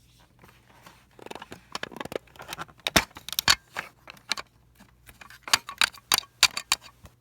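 Small plastic toy figures and props being handled and set down: irregular clicks and taps, with the loudest clusters about three seconds in and again between about five and a half and seven seconds.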